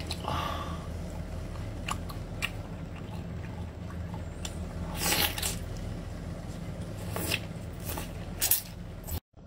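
Close-miked eating of marinated octopus: chewing, with wet sucking and slurping as tentacles are drawn into the mouth, loudest about five seconds in and again near the end. A steady low hum runs underneath.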